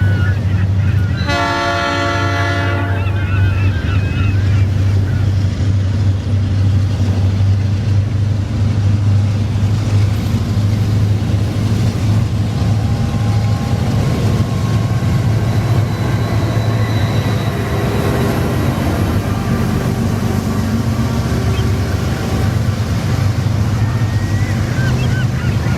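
Added full-size train sound effect: a steady low locomotive rumble, with one horn blast of about a second and a half near the start.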